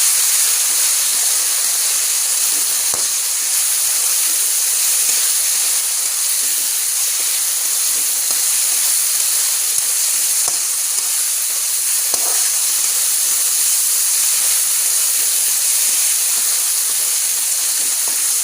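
Onion and spice masala frying in hot oil in a pan: a steady, loud sizzle, with a few light knocks.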